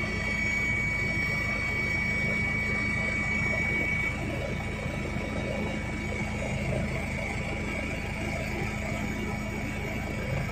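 Helicopter in flight heard from inside the cabin: a steady engine and rotor drone with a high whine on top, the whine easing a little about four seconds in.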